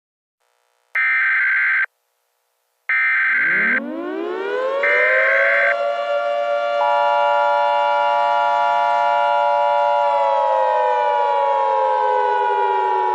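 Emergency Alert System tones: three short bursts of the screeching digital data header, with a civil defense siren winding up from the second burst, holding steady, then starting to wind down about ten seconds in. About seven seconds in, the EAS two-tone attention signal joins as a steady dual-pitched tone over the siren.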